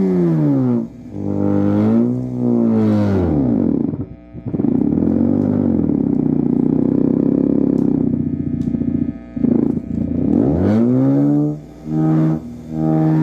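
A circuit-bent car vacuum cleaner played as a low-pitched drone synth: one buzzy tone that swoops steeply down, arches up and back down, then holds a steady low drone for several seconds. Near the end it dips and rises again and settles on a steady tone, with brief dropouts between the swoops.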